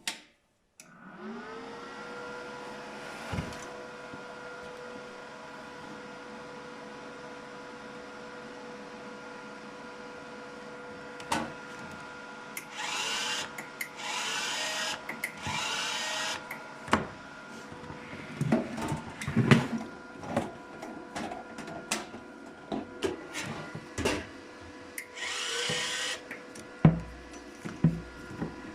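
Inverter MIG welding machine switched on, its cooling fan spinning up within the first second and then running with a steady hum. Over it come handling clicks and knocks and a few short hissing bursts.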